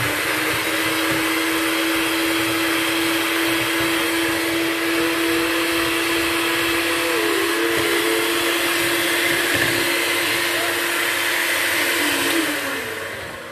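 Electric hand mixer running steadily with a motor whine, its beaters whisking cake batter in a stainless steel bowl; it is switched off about twelve seconds in and winds down.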